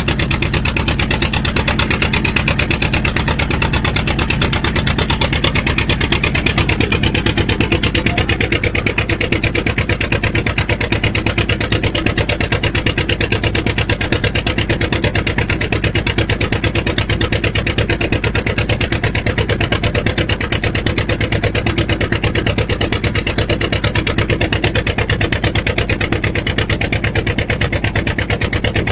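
An engine running steadily at an even speed, its regular firing pulses unbroken throughout.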